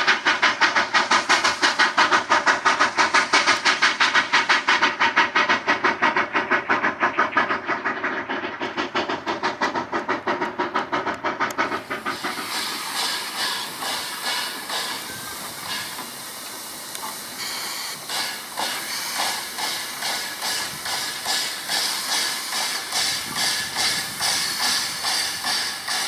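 Durango & Silverton narrow-gauge steam locomotive working a train, its exhaust chuffing steadily about three times a second with hiss of steam. About twelve seconds in the sound changes abruptly to a thinner, hissier chuffing that keeps its beat.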